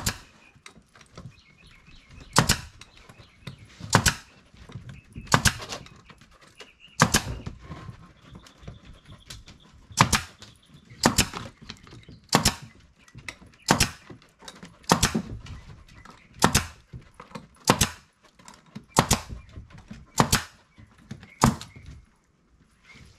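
Pneumatic nail gun firing nails into old wooden porch floorboards, one sharp shot roughly every second and a half in a steady series as the boards are fastened down to stop them bouncing.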